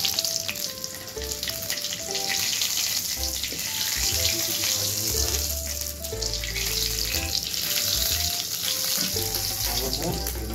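Cumin seeds and dried red chillies frying in hot mustard oil in a wok, a steady crackling sizzle, with a spoon stirring them.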